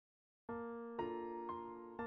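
Background music begins about half a second in: a gentle melody of held notes, a new note struck about every half second.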